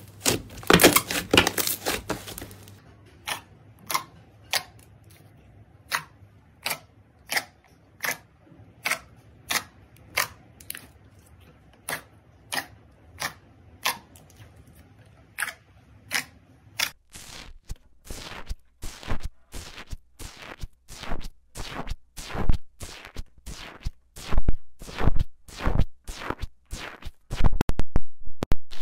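Slime being pressed and poked, its trapped air pockets popping in sharp clicks and crackles. A dense crackle for the first couple of seconds gives way to single pops, about one and a half a second, which turn faster and louder in the last ten seconds or so.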